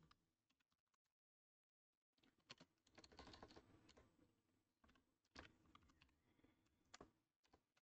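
Near silence, broken by a few faint, scattered clicks of typing on a computer keyboard.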